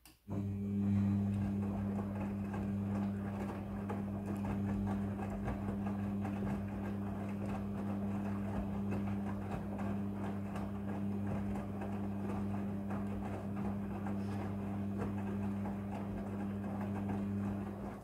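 Front-loading washing machine, a Midea, running one tumbling stroke of its wash cycle: its motor starts up suddenly with a steady low hum while the wet laundry tumbles and sloshes in the drum, then it cuts off abruptly at the end as the drum stops.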